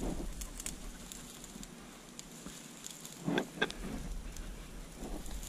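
Dry scrub and brambles rustling and crackling faintly as they are pushed through, with a few short knocks and rustles about three seconds in.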